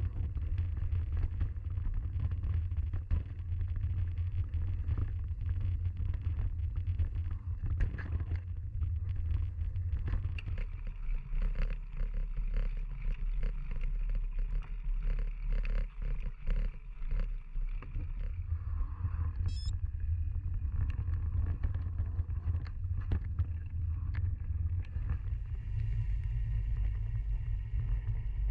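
Mountain bike ridden over a rough, leaf-strewn forest trail, heard through a bike- or body-mounted action camera: a steady low rumble of wind and jolting on the microphone, with the bike's rattles, clicks and knocks as it bumps over the ground.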